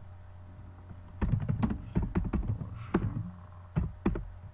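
Typing on a computer keyboard: a quick run of keystrokes begins about a second in and carries on to near the end, as a short terminal command is typed.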